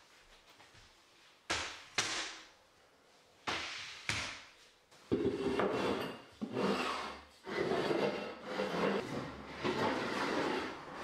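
A few sharp wooden knocks as flooring boards are handled and set down, then from about halfway a run of repeated rubbing and scraping strokes on bare wooden floorboards, about one a second.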